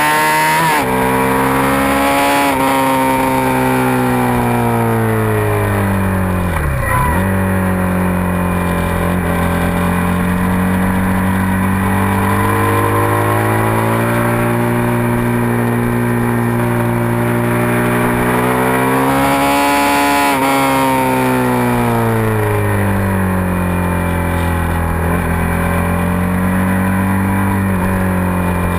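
Suzuki SV650's V-twin engine running hard on track. The revs rise and fall with throttle and gear changes, with one sharp drop and recovery about seven seconds in.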